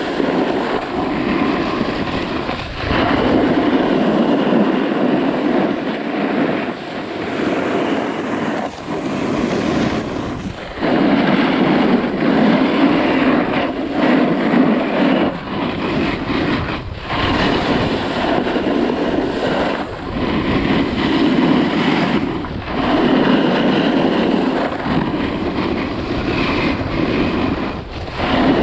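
Edges scraping and hissing over packed, groomed snow on a steady run downhill, with wind buffeting the microphone. The scraping swells and eases every few seconds as the rider turns.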